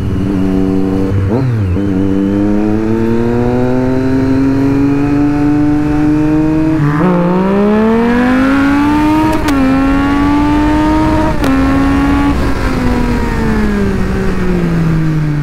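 Triumph Street Triple's inline three-cylinder engine accelerating hard, its note climbing through the gears with three quick upshifts, then falling away as the throttle closes near the end. Steady wind rush on the rider's microphone.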